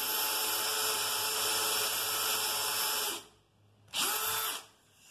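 Bosch 18V cordless drill running steadily as its bit bores into plywood. It stops about three seconds in, then gives a second short run of about half a second.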